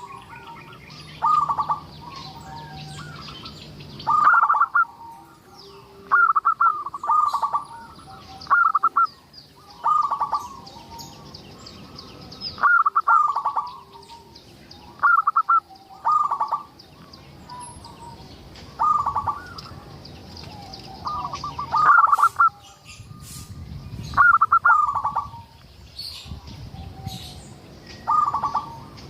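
Zebra dove cooing: short, trilled coo phrases repeated every second or two, with a few longer pauses between runs.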